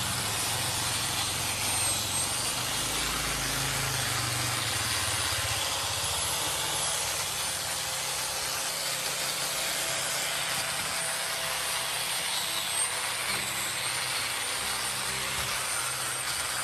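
Electric angle grinder with an abrasive disc grinding rust and old paint off a cast-iron gearbox housing: a steady grinding noise over a high motor whine that dips slightly now and then as the disc is pressed onto the metal.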